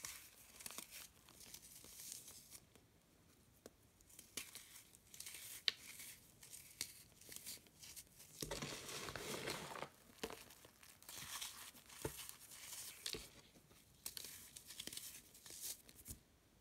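Dry sandy dirt trickling from pinching fingers and crumbling: a string of soft hissing pours and small crunches, the longest pour lasting over a second about halfway through, with a few sharp ticks of grit.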